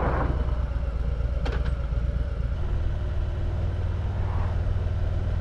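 Motorcycle engine and road and wind noise while riding, a steady low drone whose note shifts higher about halfway through. A single light click about a second and a half in.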